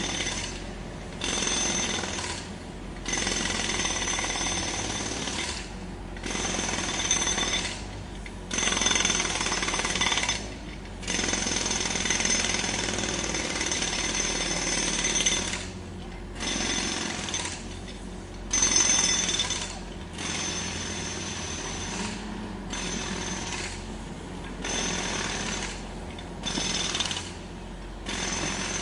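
Jackhammer breaking up road surface in runs of a few seconds at a time, with brief pauses between them, over a steady low hum.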